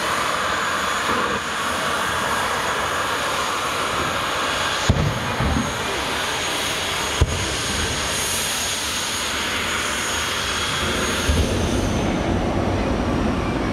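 A loud, steady engine roar with a faint high whine running through it, and two sharp knocks about five and seven seconds in.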